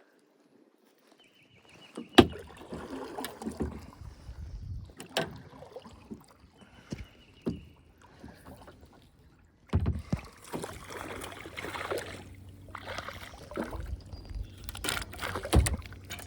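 After about two seconds of near silence, irregular knocks and clatter of gear being handled against a Pelican Pioneer kayak's plastic hull, with rustling and two brief high chirring sounds. From about ten seconds in, wind rumbles on the microphone.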